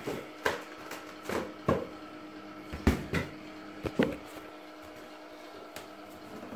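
Light thumps and knocks, about six of them in the first four seconds, then only a faint steady hum.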